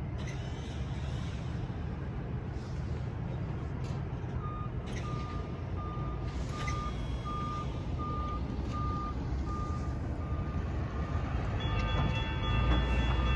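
Safetran Type-1 electronic railroad crossing bell ringing a repeating single tone, about one and a half strikes a second, over a low rumble of road traffic. About twelve seconds in, the approaching locomotive's horn starts sounding, a chord of several notes at once.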